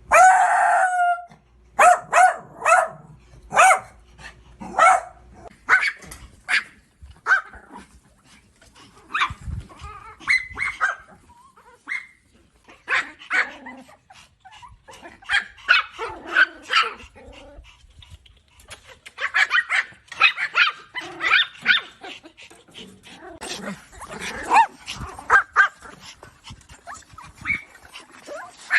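Dogs barking: it opens with one loud, drawn-out call about a second long, then comes a long run of short, sharp barks with gaps between them, which crowd closer together and overlap in the second half.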